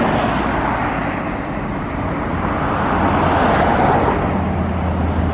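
Road traffic passing on a busy multi-lane boulevard: cars swish by in swells of tyre and engine noise. A low, steady engine drone from a heavier vehicle sets in near the end.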